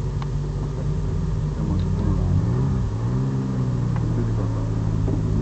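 Alpine A310's 2.7-litre V6 engine idling, heard from inside the cabin, with a couple of light throttle blips that lift and drop the pitch.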